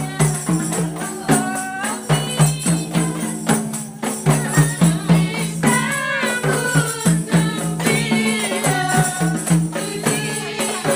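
Qasidah rebana music: women beat rebana frame drums and shake jingled tambourines in a steady rhythm while singing.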